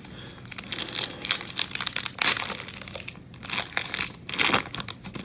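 A foil trading-card pack wrapper being handled and torn open: irregular spells of crinkly rustling.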